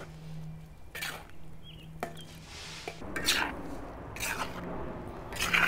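Metal spatula scraping against a cast iron wok as thick chicken curry is stirred: a few short scrapes, roughly a second apart.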